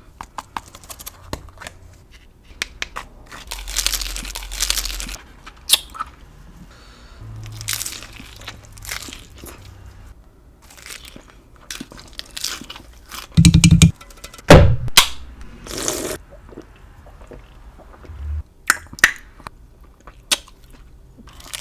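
Close-up crunching and chewing of a hard taco shell, a run of sharp crackling bites with the loudest two about halfway through.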